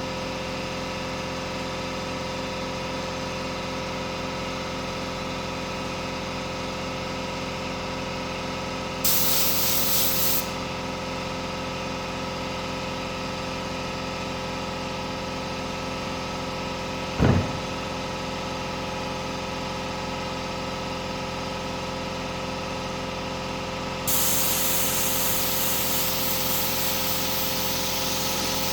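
Steady hum of a running machine, such as a compressor, with two bursts of hissing spray: a short one about nine seconds in and a longer one of about five seconds near the end. A single sharp knock comes about halfway through.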